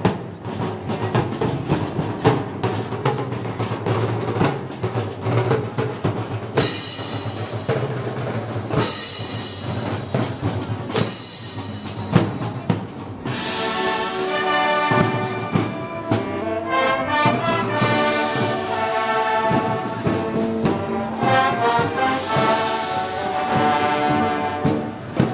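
Brass band playing Moros y Cristianos festival music: drum and cymbal strokes carry the first half, then the brass comes in strongly with the melody about halfway through.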